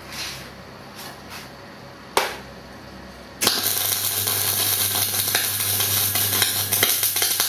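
MIG welder arc crackling on steel, shielded with CO2 gas from fermenting wine. It strikes suddenly about halfway through and runs for about four seconds with a steady low hum underneath, then stops near the end. A single sharp click comes a little before it.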